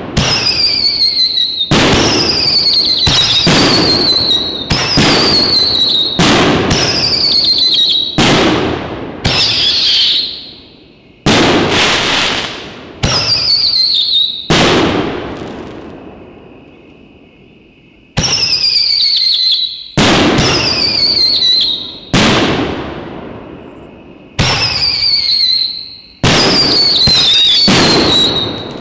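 Fox Fireworks Sonic 5-inch whistling canister shells going off in quick succession: loud bangs about every one to two seconds, many of them carrying a shrill whistle that falls in pitch, with a brief lull near the middle.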